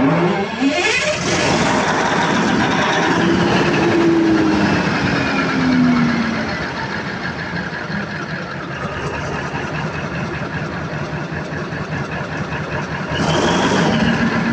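Freshly overhauled Cummins KTA50 V16 diesel engine just after starting, its pitch rising and falling over the first few seconds before it settles into a steady idle. There is a brief louder surge near the end.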